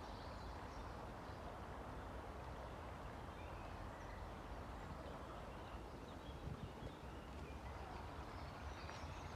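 Faint, steady rush of a small stream flowing below a footbridge.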